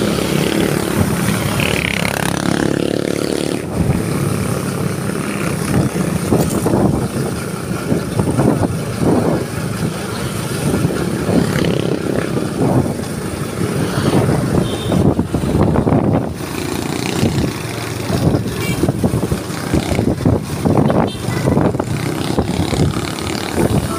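Motorcycle engine running under way, with road and wind noise from the ride and street traffic around it.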